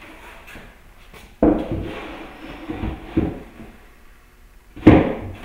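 Knocks and clunks of wood being handled, a wooden shipping crate and a framed piece being lifted and set down: a sharp knock about a second and a half in, a couple of smaller ones, and the loudest knock near the end.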